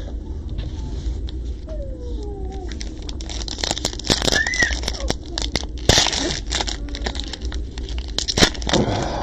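A foil-wrapped football card pack being torn open by hand. From about three seconds in, the wrapper crinkles and crackles in a run of quick rustles.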